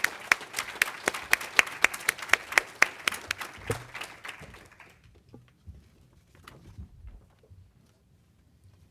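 Audience applauding, with one pair of hands clapping close to the microphone at about four claps a second. The applause dies away about five seconds in, leaving a few faint knocks.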